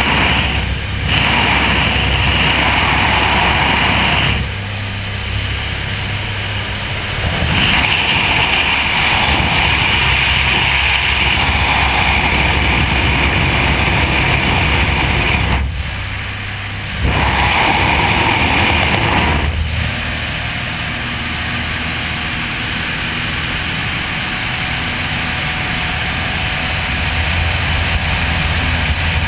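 Light aircraft's propeller engine running in flight, with a loud rush of wind through the open jump door. The rush surges and falls away several times. After about twenty seconds only a steadier, duller engine drone remains.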